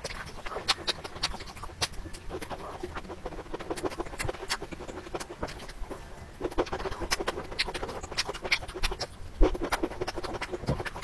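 Close-miked chewing of a mouthful of broccoli: a quick, irregular stream of small crisp clicks and wet mouth sounds, busier about two-thirds of the way through.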